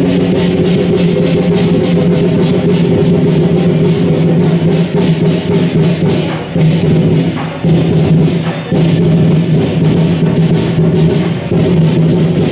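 Southern lion dance percussion: drums and cymbals beating a fast, even rhythm of about four strikes a second, over a steady low held tone. The beat breaks off briefly a few times in the middle.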